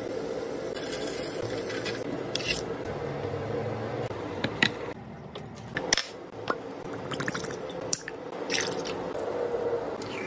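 Food sounds in quick succession: a steady hum under the grilling fish, then squelching and crunching with several sharp clicks.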